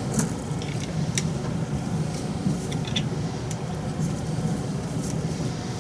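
Steady low machine hum with scattered light clicks and taps, a few of them sharper, about a second apart at first.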